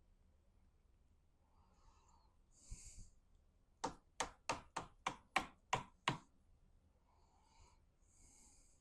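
A run of eight quick, sharp taps or knocks, about three a second, with faint breaths before and after.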